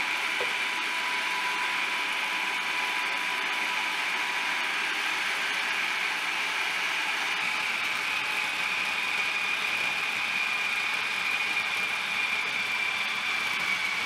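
Food processor running steadily on low speed, its motor giving a constant whine, as it mixes pie-crust dough while the egg and water are added.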